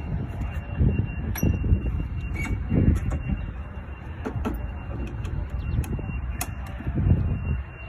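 Scattered clicks and knocks over a low uneven rumble as the operator gets onto the Takeuchi TB235 compact excavator ahead of starting it; a faint steady high tone runs underneath. The engine is not yet running.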